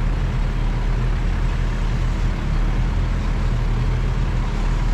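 Diesel engine of a trackhoe (excavator) running steadily at idle, with no breaker blows.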